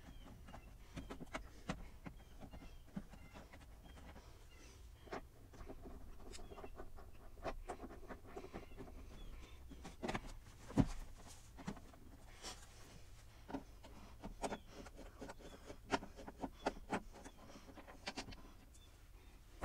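Faint, irregular clicks and taps of a screwdriver taking out the screws around the edges of a Jeep Grand Cherokee's driver's door panel, with one sharper knock a little past the middle.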